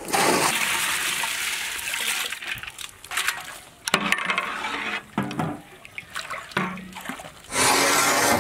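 Soaked toor dal and its water tipped from a steel plate into a large pot of water, splashing for about three seconds. Then a ladle knocks and clinks against the metal pot, with a short rush of noise near the end.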